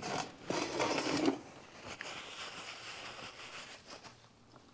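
Hands handling engine parts on a workbench: about a second of rattling and rubbing, then a softer rustle.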